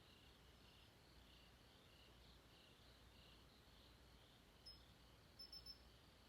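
Faint night chorus of crickets, a steady pulsing trill. A few short, high chirps stand out, one about four and a half seconds in and a quick run of three near the end.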